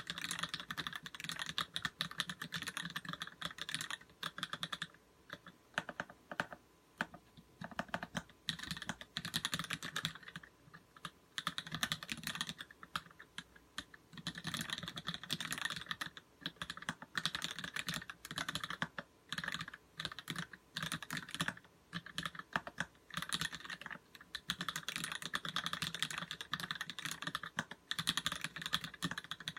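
Typing on a custom mechanical keyboard with lubed vintage Cherry MX Black linear switches and GMK keycaps: quick runs of keystrokes clacking and bottoming out, broken by short pauses.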